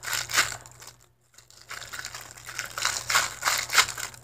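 Clear plastic bag crinkling and rustling as it is handled, in irregular crackles with a short pause about a second in.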